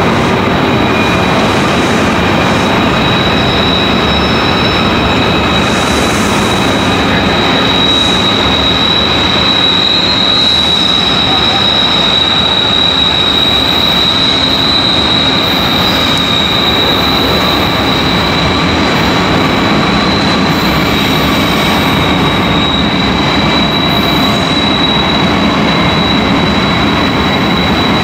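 Freight train noise, a continuous loud rumble with train wheels squealing in one steady, high-pitched whine over it.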